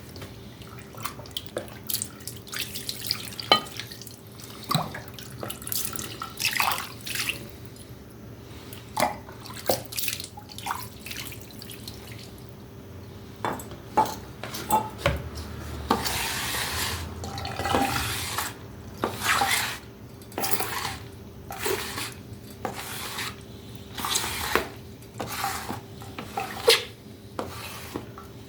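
Water running and splashing in short bursts at a sink, with knocks and clinks of a hard object being handled and rinsed; the water runs more steadily for a few seconds past the middle.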